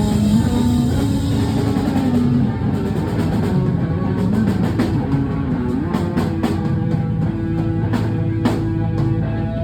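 Live rock band playing: held guitar and bass notes, with drum kit hits coming in at a steady beat from about two seconds in.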